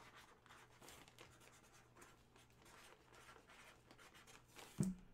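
Faint scratching of a Sharpie marker writing, in short irregular strokes. A brief, louder low sound comes near the end.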